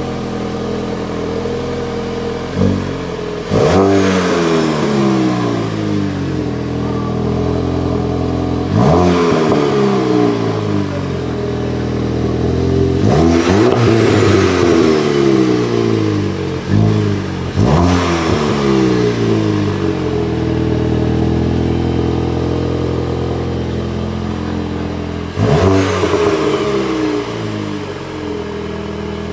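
Golf GTI Performance's 2.0-litre turbocharged inline four-cylinder petrol engine idling and being revved in short blips, about six times, each rising sharply and falling back to idle.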